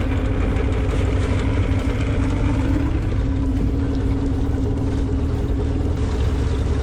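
Outboard motor of a fishing boat running steadily under way, a continuous low rumble with a steady hum.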